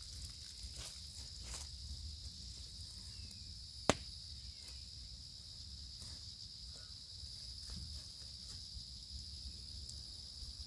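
Night insects, crickets or similar, chirring in a steady high-pitched chorus. A single sharp click about four seconds in, with a few faint ticks around it.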